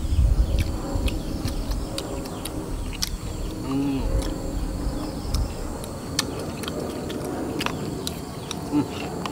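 People chewing crispy battered fried pork, with scattered crunchy clicks from the batter. A short animal call sounds about four seconds in.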